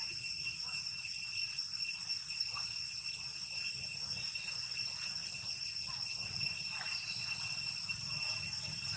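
Insects droning steadily in a constant high-pitched whine that holds unchanged throughout.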